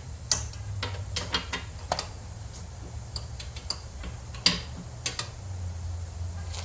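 Ratchet wrench clicking in short, irregular runs with metal tools clinking as bolts are backed out of a small engine, over a low steady hum.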